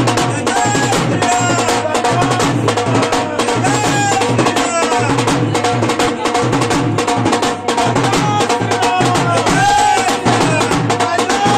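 Drums played in a fast, steady beat, with a wavering melody line over them.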